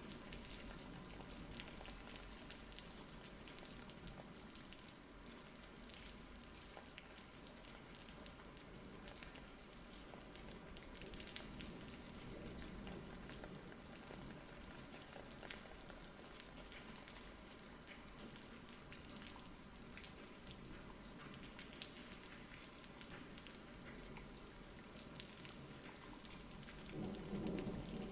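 Faint, steady rain: an even patter with scattered single drop ticks. A low rumble of thunder swells near the end.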